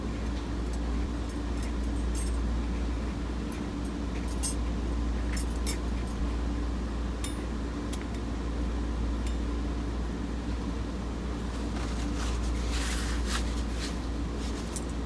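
Watercolour painting sounds over a steady low hum: scattered light clinks of a brush against a glass, then a short scrubbing of a brush on paper near the end.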